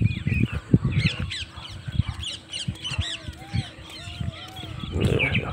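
Birds calling over one another in many short, arching chirps, with a few slower, lower arching calls in the middle. Low thumps on the microphone come and go throughout.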